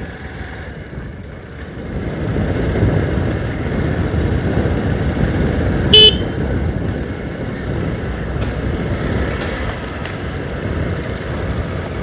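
Motorcycle ride noise: engine and wind rumble that grows louder about two seconds in, with one short vehicle horn toot about six seconds in.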